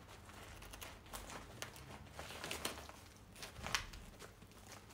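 Stiff sego gele headwrap fabric rustling and crinkling faintly under the hands as it is adjusted and pinned, with a few sharper crinkles, the clearest about three-quarters through.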